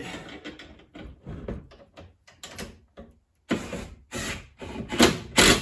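Handling noises from work on a roof rack: a string of clicks, knocks and short scrapes, with two loud knocks near the end.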